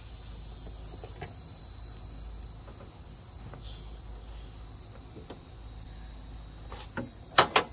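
Steady high buzzing of insects with a few faint clicks as the plastic oil filter housing cap is screwed down by hand, then a sharp metallic clatter near the end as a tool is picked up.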